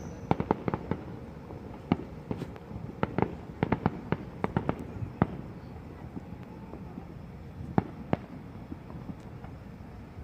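Fireworks going off: a rapid scatter of sharp bangs and cracks, thickest in the first five seconds, then a couple of single bangs about eight seconds in.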